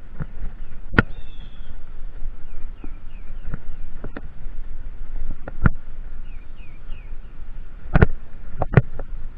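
Mountain bike rolling fast over rough, dry grass: a steady low rumble of tyres and wind on the camera, broken by sharp knocks and rattles as the bike jolts over bumps, the loudest cluster about eight seconds in.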